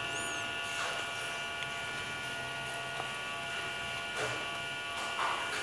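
Steady electrical buzz and hum with several fixed high whining tones, with a couple of faint clicks.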